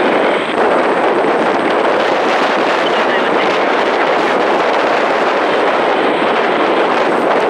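Steady jet roar from the Snowbirds' formation of CT-114 Tutor jets, each with a single J85 turbojet, climbing away after takeoff.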